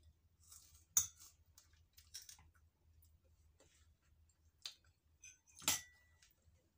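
Close-up eating sounds from biting and sucking a ripe mango seed: a few separate wet clicks and smacks with short hissy slurps. Near the end a louder clink that rings briefly.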